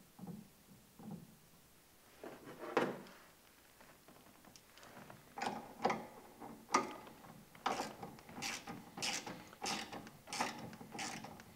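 Socket ratchet clicking in short strokes as the pinch bolt on a mud motor's handle clamp is tightened, with a wrench holding the other end. A few separate clicks come first, then about two ratchet strokes a second from about halfway in.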